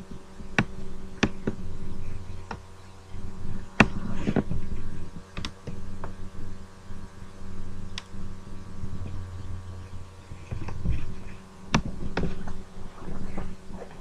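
A steady low hum with scattered sharp clicks and a few soft knocks.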